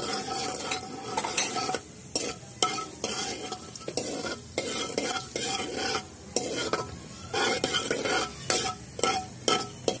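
Fenugreek seeds, cumin seeds and asafoetida sizzling in hot oil in a metal kadhai, while a steel ladle stirs them and scrapes the pan in repeated uneven strokes. This is the spices being roasted for the tempering (tadka).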